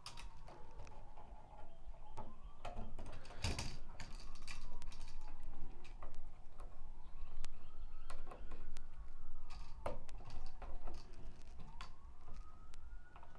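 A siren wailing, its tone slowly rising and falling about every four seconds, under scattered sharp clicks and taps from handling a light switch and its wiring.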